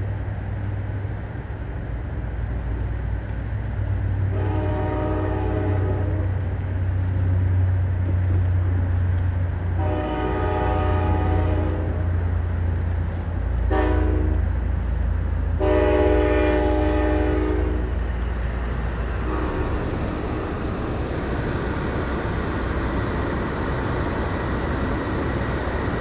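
Sounder commuter train's horn blowing the grade-crossing signal: long, long, short, long, then a faint brief blast. Underneath is the steady low rumble of the moving train.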